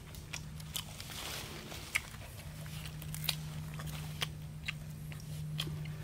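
A person biting and chewing cooked fish eaten by hand, with irregular wet smacks and sharp clicks close to the microphone.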